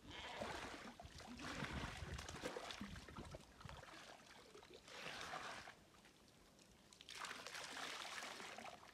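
Pond water splashing and sloshing as a sheep is dunked and scrubbed by hand, in three spells with a lull about two-thirds through; near the end water is poured over the animal from a plastic jug.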